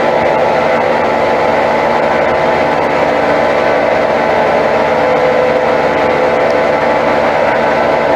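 Brastemp 8 kg top-loading washing machine spinning at speed, its drum bearing making a steady, many-toned noise like a jet turbine. The bearing has dried out and needs replacing.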